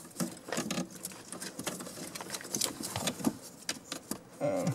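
Irregular small clicks and rustles of a car's wiring harness and plastic plug connectors being handled and pulled loose.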